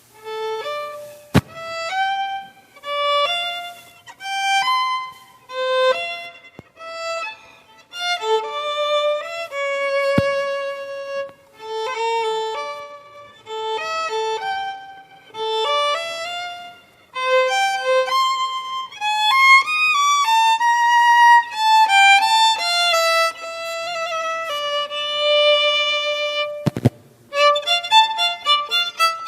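Violin playing a slow melody in short phrases of held notes, breaking into quicker notes near the end. A few brief knocks sound over it, the clearest about a second and a half in and near the end.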